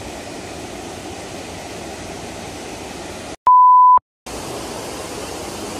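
Steady rush of falling water from the Trevi Fountain. About three and a half seconds in it cuts out for a moment around a loud, steady electronic beep lasting about half a second, then the water sound returns.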